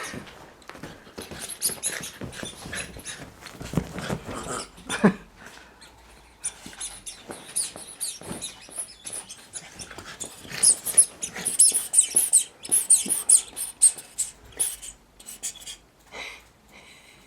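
A puppy playing with a squeaky rubber duck toy: many short squeaks and clicks, busiest in the second half.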